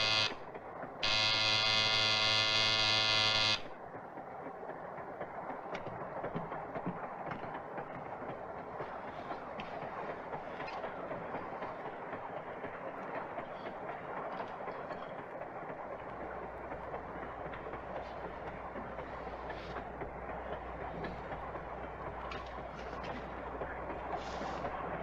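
A train horn sounds twice, a short blast and then one of about two and a half seconds, followed by the steady rumble and rattle of a moving passenger train heard from inside the car. A low steady hum comes in about sixteen seconds in.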